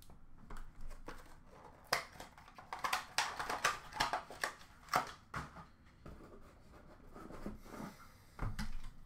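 Hard plastic card holders clicking and tapping as they are set down and stacked, a rapid run of sharp clicks through the first half. Later comes a softer rustle of cardboard as a box is pulled from an open cardboard case.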